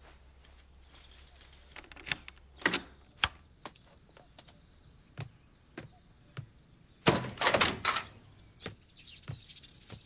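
Footsteps in house slippers on a wooden floor: a string of soft knocks and clicks, with a louder scraping, rustling noise about seven seconds in.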